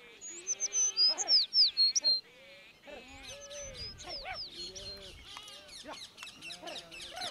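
Birds chirping with sharp, high whistled notes, loudest in the first two seconds, then a busier, quieter chatter of many birds. Sheep and goats bleat now and then underneath.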